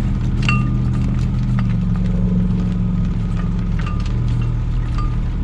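Sailboat outboard motor idling steadily, its note changing slightly about a second and a half in. Scattered sharp clicks from the cockpit winch as the jib line is hauled in.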